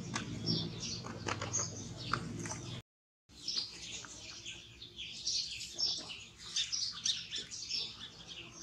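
Many small birds chirping and twittering continuously, over a low steady hum that stops with a brief gap in the sound about three seconds in.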